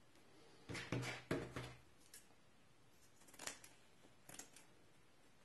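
Quiet rustling as mesh flashing tape is handled, then a few soft scissor snips cutting through the tape.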